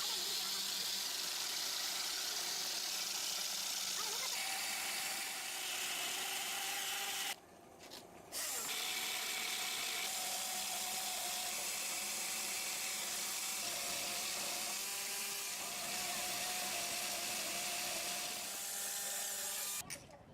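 Sawmill machinery running: a steady, noisy power-saw sound with a held whine, cutting out briefly about seven seconds in.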